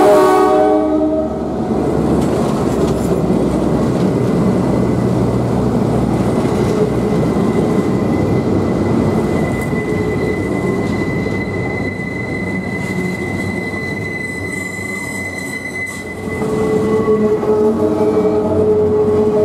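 Railroad cars rolling past at close range, wheels rumbling steadily on the rails, just after a locomotive horn chord stops about a second in. A thin, steady, high wheel squeal rings from about halfway until near the end, when a horn chord sounds again.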